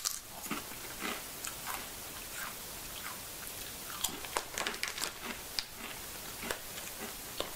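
A person biting and chewing wavy potato crisps: a run of irregular, sharp crunches.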